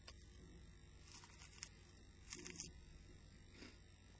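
Near silence, broken by a few faint crunches of a chocolate-coated rice cake being chewed, about a second in and again past two seconds.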